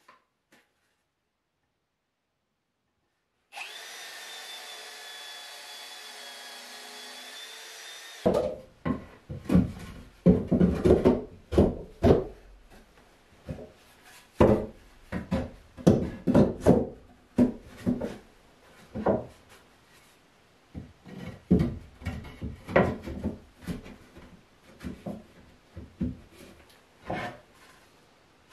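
After a few seconds of near silence, a cordless drill's motor hums steadily for about five seconds. Then comes a long, uneven run of wooden knocks and short rubbing strokes as the planks of a built-in wardrobe are worked by hand, with sanding-block strokes among them.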